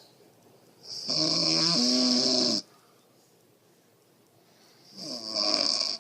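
A woman snoring loudly, two snores: the first about a second in and lasting under two seconds, the second shorter, near the end.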